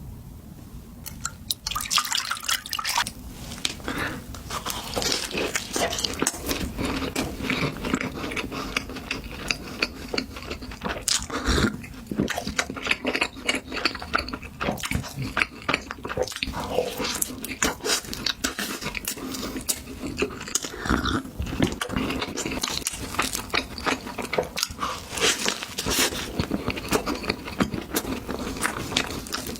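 Close-miked eating: chewing and biting into a soft sweet pastry, with many small wet, sticky mouth clicks in quick succession.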